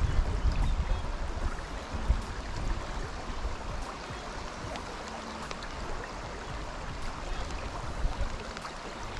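A fast-flowing river: a steady rush of moving water, with low rumbling buffets that are louder in the first few seconds.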